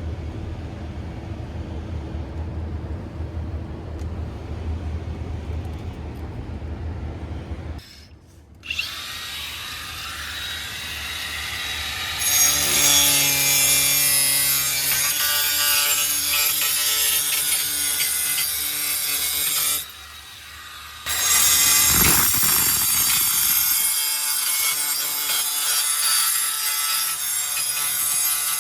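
A power tool running with a steady whine and a harsh rasping, as if cutting or scraping. It stops for about a second two-thirds of the way through, then starts again. Before it starts, there is a low rumble.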